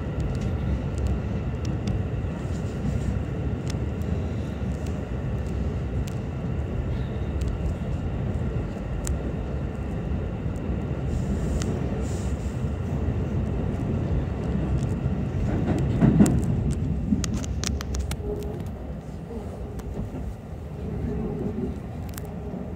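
Keikyu limited express train running at speed through a tunnel, heard from inside the carriage: a steady low rumble of wheels on rail. It swells, with a run of sharp clicks, about sixteen seconds in, then eases as the train comes out into the open near the end.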